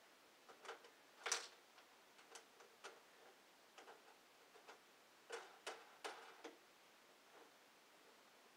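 Faint, scattered clicks and taps of hard plastic parts being fitted together by hand on a moulded plastic mini skate ramp. The sharpest click comes about a second in, and a quick run of clicks follows about five to six and a half seconds in.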